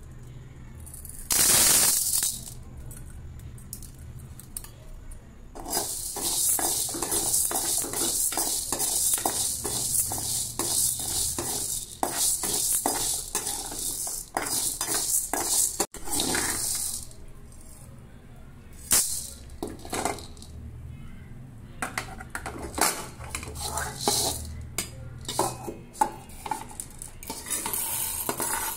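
Dry lentils poured with a rushing rattle into an empty aluminium kadai, then a steel ladle scraping and stirring them around the pan for about ten seconds, followed by scattered clinks of ladle on metal. Near the end the lentils are tipped into a steel mixer jar with another rattle.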